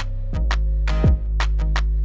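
Background music with a steady electronic beat. Deep bass kicks drop in pitch about once a second under sharp percussion hits and a held low bass line.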